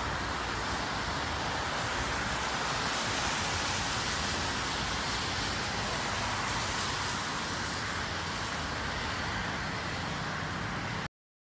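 Steady hiss of tyres and road noise from a car driving on a wet road, with a low rumble beneath; it cuts off suddenly near the end.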